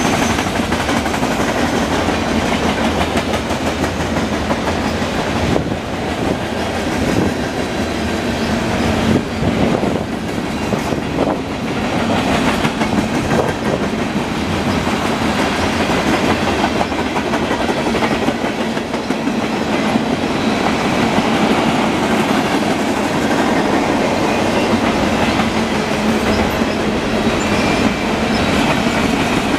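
Freight cars of a manifest train rolling past at trackside: a steady rumble of steel wheels on the rails, with occasional clacks of wheels over the track.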